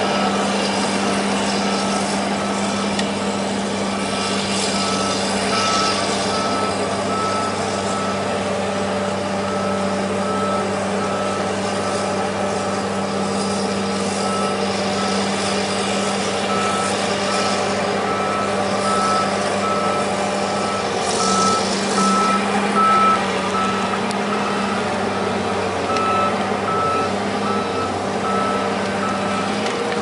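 Diesel engine of a tracked logging machine running steadily on a steep slope, with a warning alarm beeping at an even pace throughout. A few louder bursts of machine noise come about two-thirds of the way in.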